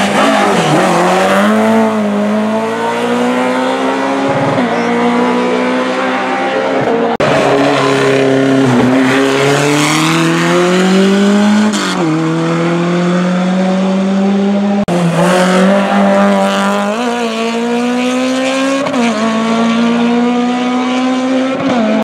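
Racing car engines at full throttle up a hill-climb course, the pitch climbing through each gear and dropping back at every upshift. Several cars are heard in turn, and the sound changes abruptly between them.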